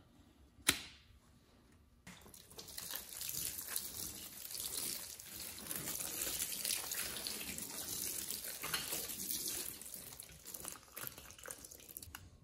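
Bypass pruning shears snipping through a dormant fig cutting once, a single sharp click. Then, from about two seconds in, a steady hissing rush that fades near the end.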